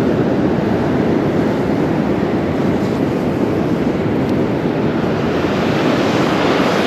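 Steady rush of ocean surf breaking and washing up the beach, with wind buffeting the microphone; the hiss of the wash grows a little brighter near the end.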